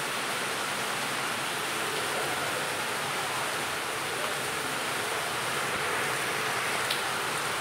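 Heavy monsoon rain falling, a steady even hiss.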